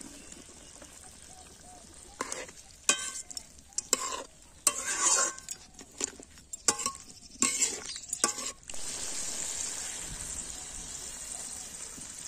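A metal spatula scraping and knocking against a metal wok as chicken and green papaya pieces are stirred in hot oil, with sizzling. The stirring stops about two-thirds of the way through and a steady sizzle carries on.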